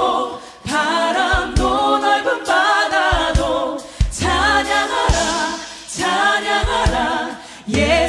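Background music: a song sung by a choir, in phrases with short breaks between them.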